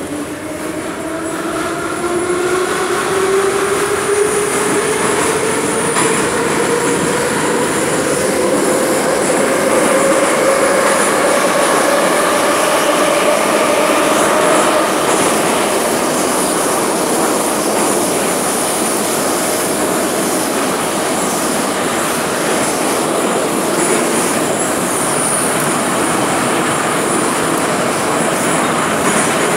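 Moscow metro train heard from inside the car as it pulls away from a station: the traction motors' whine rises steadily in pitch over the first fifteen seconds or so as it accelerates, over a loud, steady rush of wheel and running noise that carries on through the tunnel.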